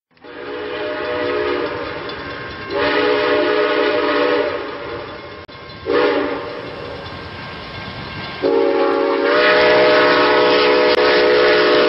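Train horn sounding a chord of several notes in four blasts: long, long, short, long. This is the signal a train gives when approaching a level crossing.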